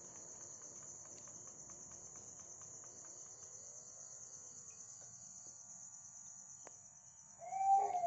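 Crickets chirring steadily in a high, even band. A faint whine made of several steady tones rises and fades in the middle, and near the end comes a loud, drawn-out cry that falls in pitch.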